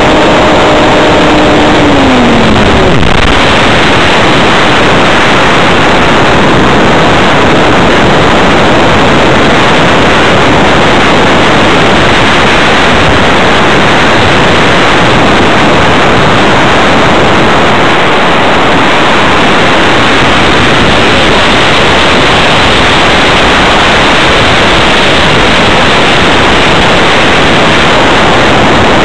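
Electric motor and propeller of an RC hotliner whining at a steady pitch, then dropping in pitch and cutting out about two to three seconds in as the throttle comes off. After that, loud steady wind rush over the onboard camera microphone as the model flies on unpowered.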